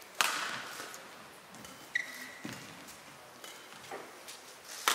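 Badminton rackets striking a shuttlecock in a large hall. A sharp crack comes just after the start and another near the end, each trailing off with a short echo, with lighter hits between. About two seconds in, a shoe gives a brief squeak on the court floor.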